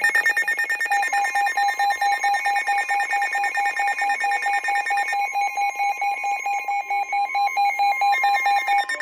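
Several NOAA weather radios sounding their alert at once: rapid electronic beeping from the radios over the steady 1050 Hz warning alarm tone broadcast by the National Weather Service, which signals that a warning message is about to follow. Part of the beeping drops out about five seconds in.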